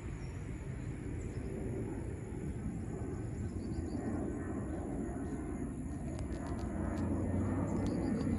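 Airliner flying overhead: a steady rumble of its engines that grows gradually louder, with a few faint ticks in the second half.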